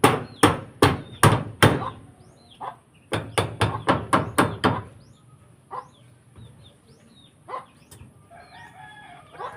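Hammer blows, about a dozen sharp strikes in two quick runs, the second run faster than the first, then stopping about five seconds in. A rooster crows near the end, with small birds chirping.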